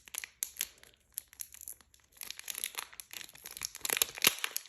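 Plastic packaging being torn open and crinkled by hand: a run of crackles and rips, scattered at first and dense from about two seconds in.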